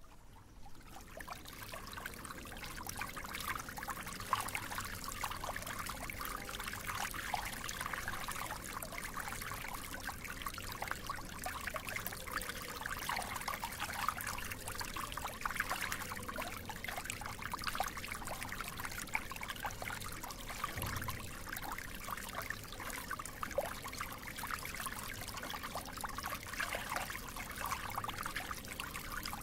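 Water flowing and trickling steadily with a continuous bubbling splash, fading in over the first couple of seconds.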